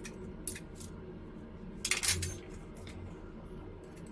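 Light clicks and clinks of small lens parts and tools being handled on a bench, with a short cluster of louder rattling clicks about two seconds in.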